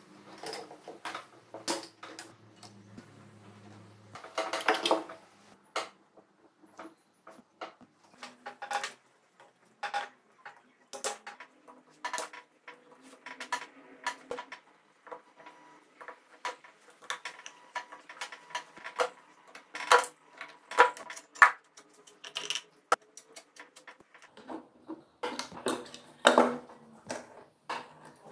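Irregular metallic clinks, taps and clatter of hand tools, bolts and engine covers being handled during teardown of a Honda CBR250 MC22 engine, with a couple of louder clattering bursts.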